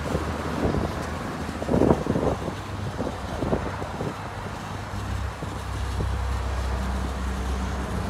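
Self-service car-wash foam lance spraying thick foam onto a car's side and wheel: a spattering hiss with louder splashes about two seconds in, over a steady low hum.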